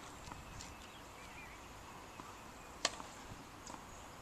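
Faint outdoor ambience with a few soft bird chirps, and a single sharp knock of a tennis ball a little under three seconds in.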